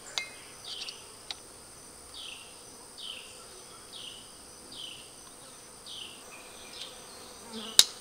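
A plastic hive beetle trap snapping together: one sharp click near the end, the loudest sound, with smaller clicks near the start. Behind it runs a steady high insect whine, and a short chirp falling in pitch repeats about once a second.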